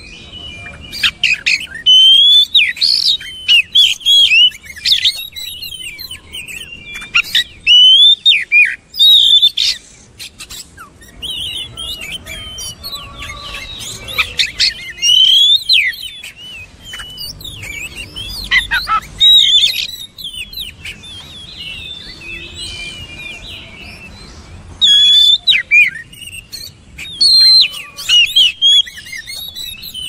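Oriental magpie-robin (kacer) singing: loud bursts of varied whistled phrases that sweep sharply up and down in pitch, broken by short pauses.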